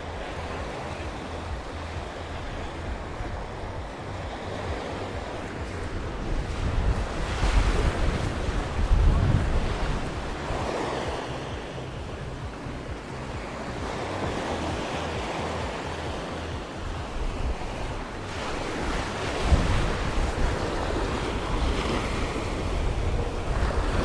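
Surf breaking and washing up on a sandy beach, with wind buffeting the microphone. The wash swells louder twice, about a third of the way in and again a little past halfway.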